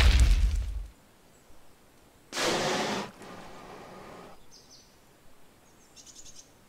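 Fantasy audio-drama sound effects: a deep rumble fading out in the first second, then a short rushing noise, and a few faint high bird-like chirps near the end.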